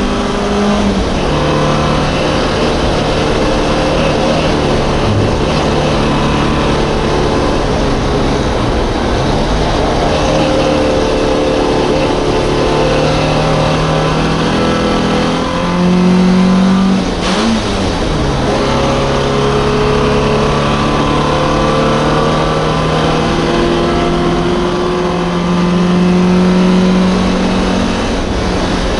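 MGB race car's four-cylinder B-series engine running hard at racing speed, its note holding steady for stretches and stepping up and down with gear changes. About two-thirds of the way in the note breaks briefly with a short blip, as for a downshift into a corner.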